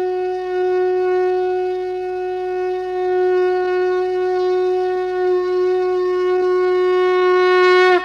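One long horn blast held on a single steady pitch, loud and unbroken, with a brief downward crack in the pitch right at the end.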